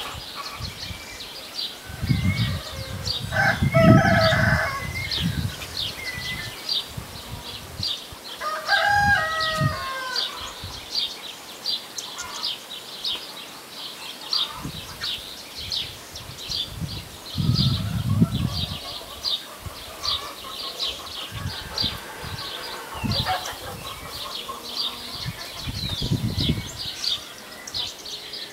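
Whistling heron chicks calling from their nest: two spells of harsh, ringing calls, over a fast high chirping that runs without a break. Low buffeting rumbles come twice, once with the first spell of calls and once later.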